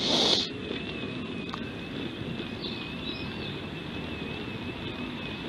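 Car rolling slowly, a steady low rumble of engine and tyres with a faint wavering high whine, after a brief rushing burst at the very start.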